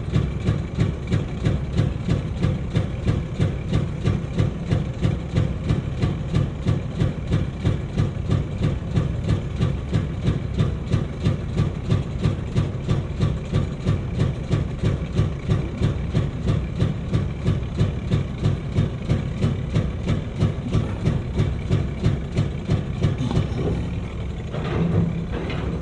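Heavy diesel engine running with an even, throbbing pulse about three times a second. The sound shifts and rises briefly near the end.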